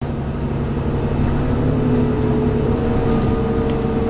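Inside a moving transit bus: engine and road noise as a steady hum, with a steady whine that comes up about a second and a half in. Two light clicks near the end.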